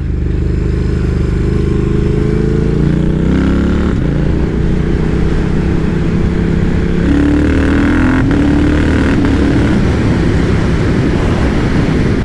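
Triumph Speed Twin's parallel-twin engine running while the motorcycle is ridden, its note rising and changing pitch several times with throttle and gear changes, over wind and road noise.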